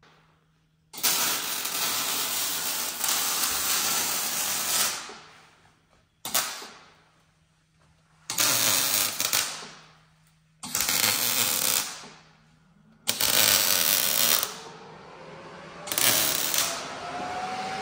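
Handheld power tool run in six bursts, the first about four seconds long and the rest a second or so each, each ending as the tool spins down.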